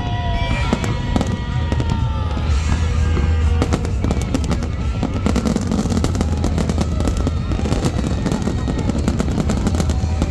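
Fireworks display: a rapid string of bangs and crackles over a steady low rumble, growing denser about four seconds in, with music playing underneath.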